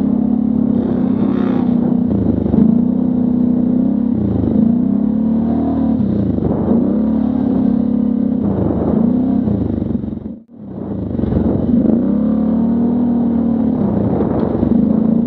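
V-twin ATV engine under way, its pitch rising and falling over and over as the throttle is opened and eased. The sound drops out sharply for a moment about ten seconds in.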